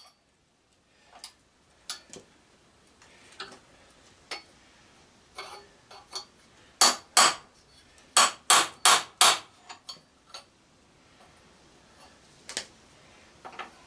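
Hammer blows on a steel punch set against the pins of a push-mower flywheel held in a bench vise. Scattered light taps, then two hard strikes about seven seconds in and a quick run of four more a second later. The pins are not budging.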